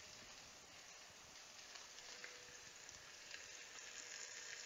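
Beef top round steaks searing in a little oil in a multi-cooker's nonstick pan at about 425°F: a faint, steady sizzle with light crackling.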